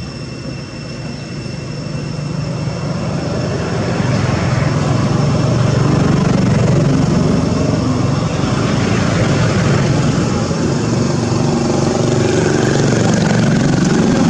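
Steady low engine rumble that grows louder over the first few seconds and then holds.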